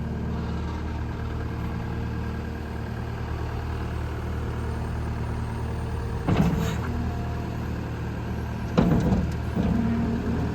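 Case skid steer's diesel engine running at a steady idle, with two short louder bursts about six and nine seconds in.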